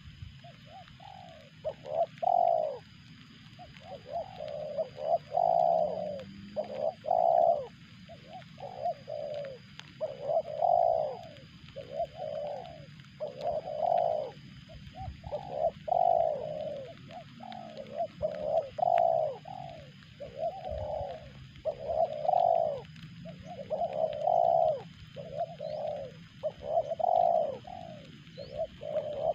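A dove cooing over and over, loud and close, in phrases about a second long that follow one another every second or two.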